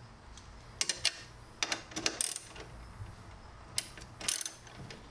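Hand socket ratchet and metal tools working on a strut tower bar's bolts: short irregular runs of sharp metallic clicks and clacks in three bunches, over a low steady hum.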